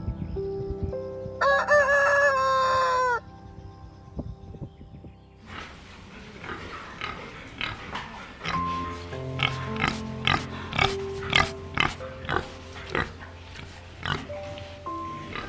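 Background music with animal calls over it: a loud, wavering, pitched call lasting nearly two seconds that drops in pitch at the end, then, after a few seconds, a run of short, sharp, noisy calls.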